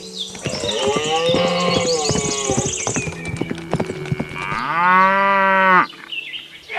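Cow mooing twice in long, drawn-out calls, the second louder. Scattered clicks and knocks run under the first moo.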